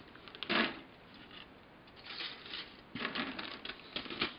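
Plastic model-kit sprues and a clear plastic parts bag being handled: crinkling of the bag and light clicks of the plastic, in a short burst under a second in and longer spells from about two seconds in.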